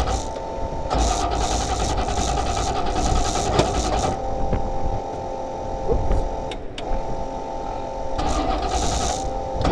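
Starter cranking the stalled engine of a Formula Offroad buggy, trying to restart it. It runs steadily, with a short break a little past the middle before cranking resumes.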